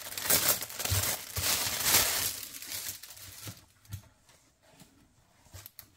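Clear plastic wrapping crinkling and rustling as a fabric tote bag is pulled out of it, for about the first two and a half seconds. It then dies away to near quiet.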